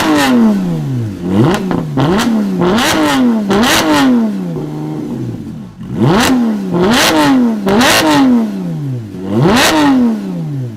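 A modified car engine with a loud aftermarket exhaust is being blipped on the throttle about nine times. Each rev shoots up sharply and falls back slowly toward idle, roughly one a second, with a short lull about halfway through.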